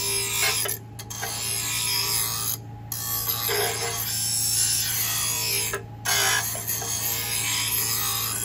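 Bench grinder's spinning wheel grinding the steel blade of garden loppers to sharpen them: a harsh, hissing grind over the steady hum of the grinder motor. It breaks off three times for a moment as the blade is lifted from the wheel.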